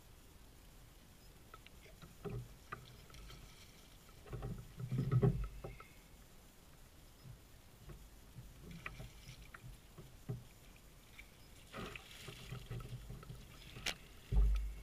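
Handling noises in a fishing kayak while an angler reels in a fish and readies a landing net: scattered light clicks and ticks and a few dull low thumps, the loudest about five seconds in and just before the end.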